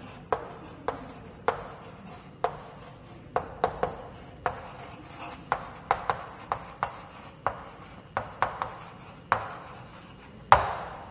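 Chalk writing on a blackboard: a run of sharp taps and short scratches as each letter is written, about one or two a second, with one louder knock near the end.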